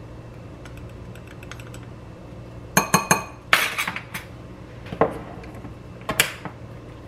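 A ring of metal measuring spoons clinking and clattering against a glass bowl and the countertop, with a few sharp clinks in small clusters starting nearly three seconds in.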